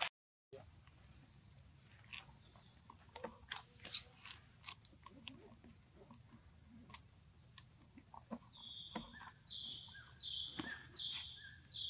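Scattered crackles and rustles of dry leaf litter as macaques move about, over a steady high hiss. From about two-thirds of the way in, a string of short, high, flat chirps repeats roughly twice a second.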